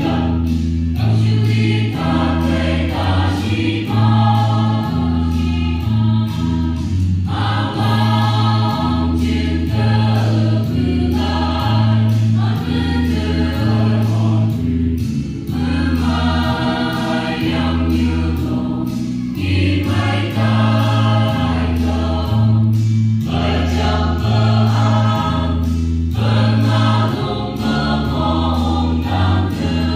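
Mixed choir of men and women singing a hymn-like piece in parts, phrase after phrase, over a low bass line that pulses in a steady rhythm.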